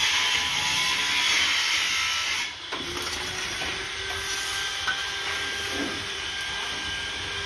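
Steel bricklaying trowel scraping and spreading mortar along the top of a brick wall, a continuous rasping scrape. It drops off suddenly about two and a half seconds in, leaving a quieter scrape over a faint steady hum.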